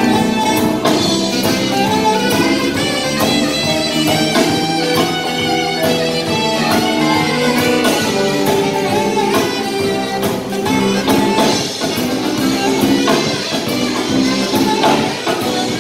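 Live rock-jazz band playing: saxophones holding a melody over electric guitars, electric bass and a drum kit keeping a steady beat.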